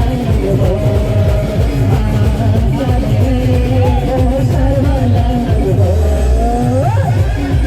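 Timli dance music played by an Adivasi band: a fast, heavy drum beat under a sliding lead melody that bends sharply upward near the end.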